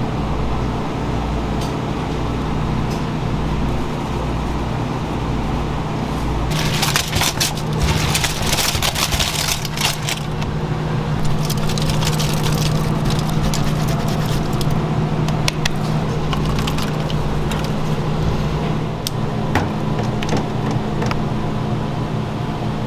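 A steady low mechanical hum, joined about six and a half seconds in by dense crackling and clicking that thins out after a few seconds and then comes back in scattered bursts.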